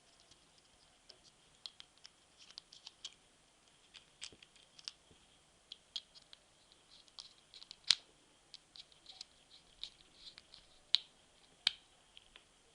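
Small metal tools and parts clicking and scraping against a plastic phono cartridge body during hand reassembly: scattered light ticks and scratches, with a sharper click about eight seconds in.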